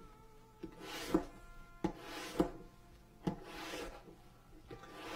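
A hand tool rubbed in repeated back-and-forth strokes along the edge of a leather piece, about one stroke every second and a half, with several short sharp clicks between the strokes.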